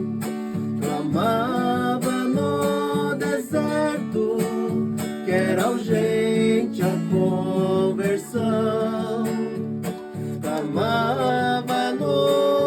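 Acoustic guitar strumming a steady accompaniment with a voice singing a few phrases over it.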